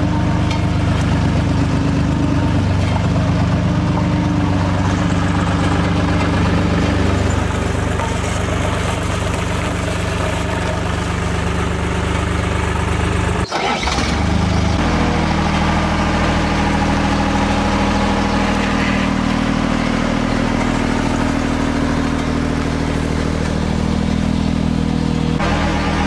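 Road roller's diesel engine running steadily, with an even, pitched hum. About halfway through the sound cuts off for an instant and comes back at a slightly different pitch.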